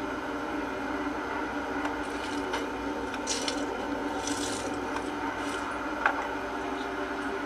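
Short bursts of squishing and rustling as a hand rummages through a soft, wet mass, over a steady low hum, with one sharp click about six seconds in.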